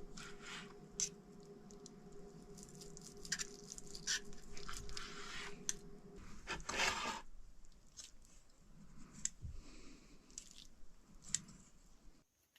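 Food being prepared by hand: sharp clicks and knocks of utensils with wet squishing and crunching of ingredients, over a steady hum that stops about six seconds in.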